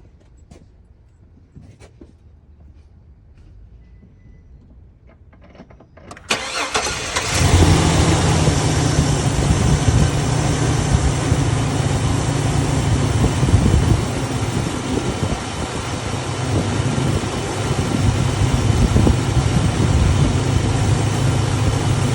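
A few faint clicks, then about six seconds in the 2003 Chevrolet Silverado's 4.3-litre V6 cranks briefly, catches and settles into a steady idle. The engine is being run just after an oil change to prime the new oil filter and circulate the fresh oil.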